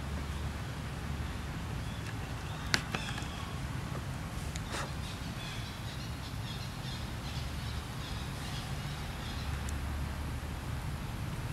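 Outdoor ambience: a steady low rumble with faint bird chirps, and a sharp click a little under three seconds in, with a softer one about two seconds later.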